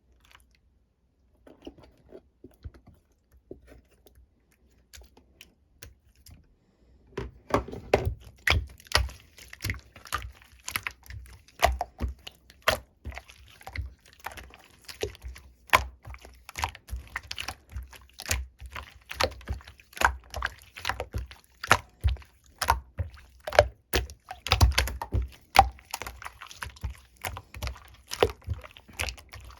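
Slime being squeezed and pressed by hand, making rapid, irregular clicking and popping sounds. Faint and sparse at first, it turns loud and dense about seven seconds in.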